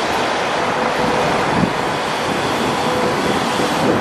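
A passenger train of 25T coaches, with an SS8 electric locomotive at the rear, rolling past close by. Wheels on rail give a steady rolling noise, with a faint whine that comes and goes in the second half.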